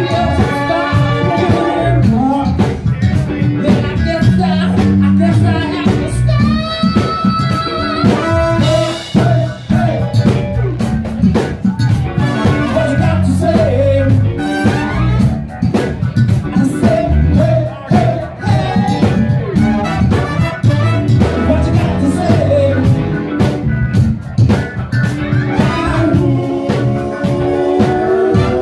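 Live band playing a dance cover song with singing, a horn section, electric guitar and drum kit, loud and continuous, picked up by a phone microphone in the crowd.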